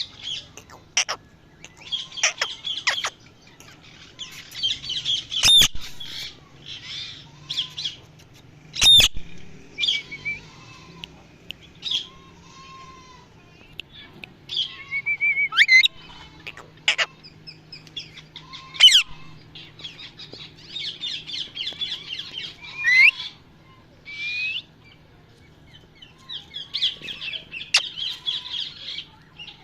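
Parrot calling throughout: sharp, sweeping squawks mixed with stretches of fast, high chirping chatter, over a faint steady low hum.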